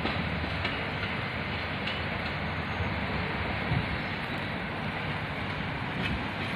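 Subway train running on its track: a steady rumble, with one small knock a little over halfway through.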